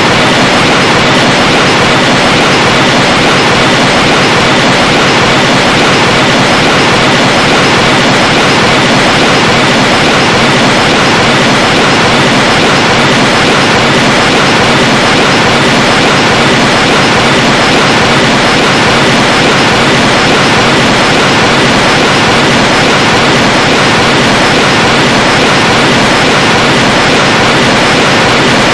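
Loud, steady hiss of static-like noise, even and unchanging, with no pitch or rhythm.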